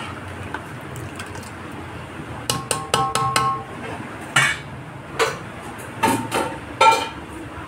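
Metal spoon clinking and knocking against a large aluminium cooking pot: a quick run of about five ringing taps about two and a half seconds in, then four or five single clanks about a second apart.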